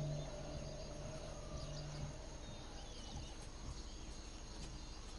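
Faint outdoor wildlife ambience: a steady hiss with a low hum that fades out about two seconds in. A few short, high bird chirps come about halfway through.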